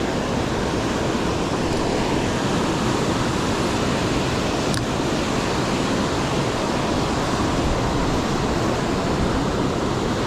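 Ocean surf washing onto a beach, a steady rush of noise with no let-up.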